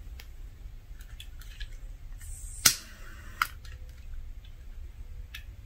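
Small taps and clicks from a candle in a clear glass holder being handled and lit on a cloth-covered table, with a short hiss and then one sharp click about two and a half seconds in, and another click just under a second later.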